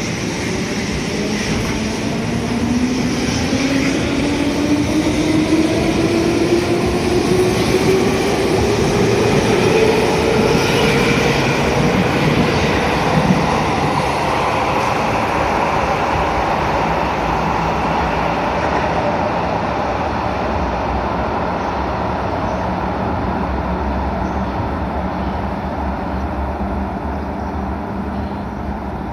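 JR 205-series electric commuter train accelerating away. Its motor whine climbs steadily in pitch over the first ten seconds or so, over wheel and track rumble. The noise then slowly fades as the train runs into the tunnel.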